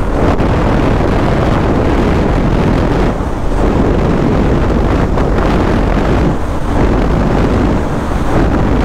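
Loud, steady wind buffeting on the microphone while riding a motorcycle, with the bike's engine and road noise underneath.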